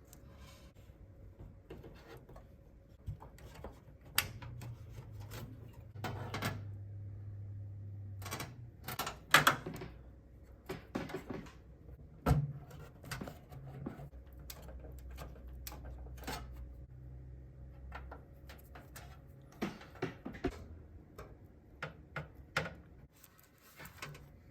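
Hands working inside a computer tower, connecting cables to the motherboard: irregular plastic and metal clicks, taps and rustles, with a couple of louder knocks about nine and twelve seconds in.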